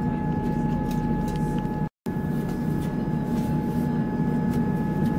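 A passenger train running steadily, its rumble carrying a constant high whine. The sound cuts out completely for an instant about two seconds in.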